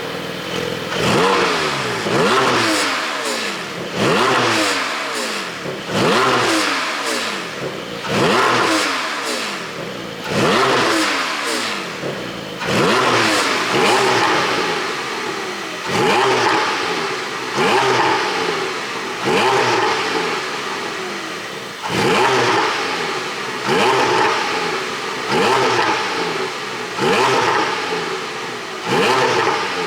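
Porsche 718 Boxster 4.0 GTS's flat-six, exhaust flaps open, revved in repeated blips about every two seconds. Each rev falls back with pops and crackles on the overrun, from a pop-and-crackle ECU tune.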